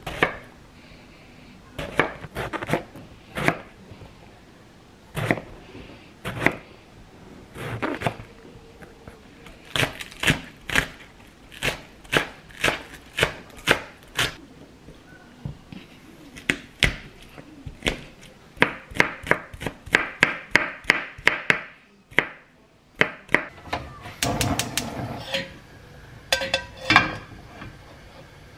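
Chef's knife chopping on a wooden cutting board: single knocks as eggplant is cut into rounds, then quicker runs of chops through green onions. Near the end come a few clattering knocks.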